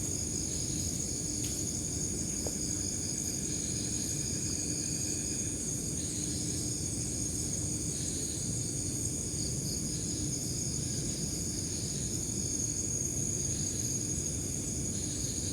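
Steady chorus of night insects: a continuous high-pitched drone with a pulsing trill beneath it, over a low rumble of background noise.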